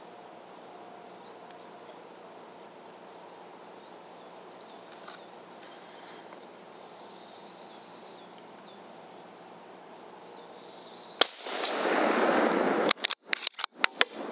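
Quiet field ambience with faint birdsong, then a single .308 Winchester rifle shot from a Tikka T3 Forest bolt-action rifle about eleven seconds in, its report rolling on for a second or so. A quick series of sharp clicks and knocks follows.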